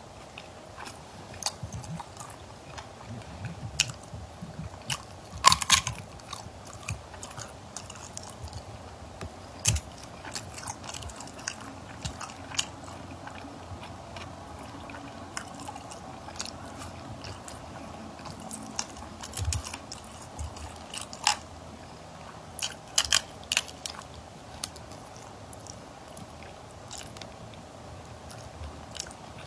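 Close-miked eating: chewing and wet mouth sounds, with sharp crunchy clicks scattered through. The loudest clicks come about five and a half seconds in and again around twenty-one to twenty-three seconds in.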